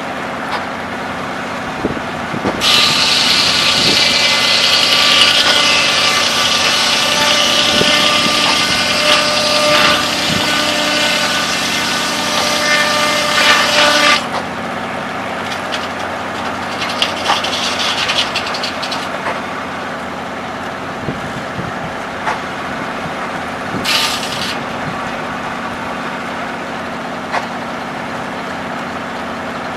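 Circular sawmill blade cutting through a log for about twelve seconds, starting about three seconds in and cutting off sharply, over the steady running of the engine that drives the mill. Two shorter bursts of the blade follow, the second about ten seconds after the cut ends.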